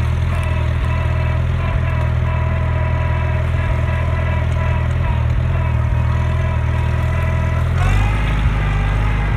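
Old tractor engine running steadily while the tractor drives. About eight seconds in, the engine note changes and rises briefly.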